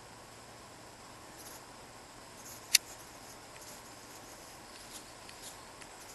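Light rain with a steady soft hiss and scattered faint high-pitched ticks. One sharp, loud click comes a little under three seconds in.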